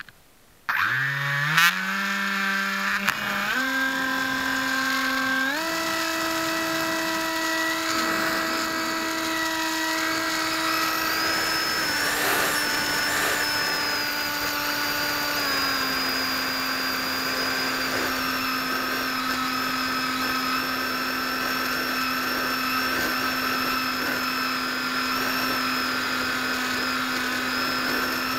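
Electric motor and propeller of an AXN foam FPV plane, heard close from its onboard camera: the motor spins up suddenly for launch and its whine steps up in pitch several times during the climb, then holds steady at cruise throttle after two small drops in pitch.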